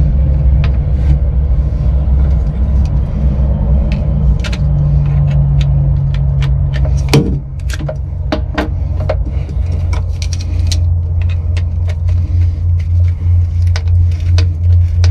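A steady low rumbling hum runs throughout, lower and pulsing in the second half. Over it come scattered sharp clicks and clatters as a screwdriver and the new bilge pump's coiled wires are handled, with one loud click about seven seconds in.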